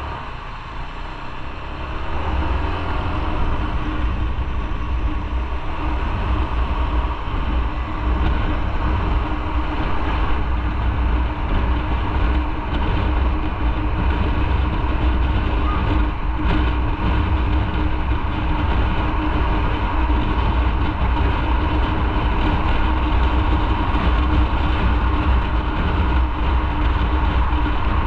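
Motorcycle riding at speed, its engine running steadily under heavy wind rush and road rumble. It grows louder about two seconds in as the bike picks up speed, then holds steady.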